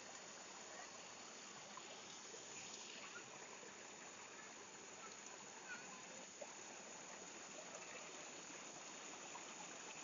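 Small stream of water spilling over and between rocks: a faint, steady rush and splash of falling water, with a few tiny brief splashes standing out around the middle.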